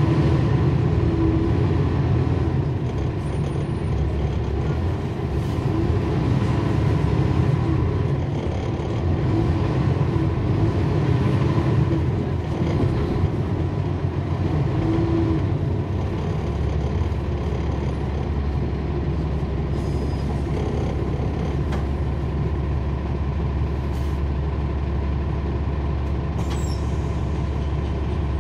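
Heard from on board a NABI 40-foot transit bus, its Cummins ISL9 straight-six diesel engine running in slow traffic. About halfway through it settles into a steady low drone.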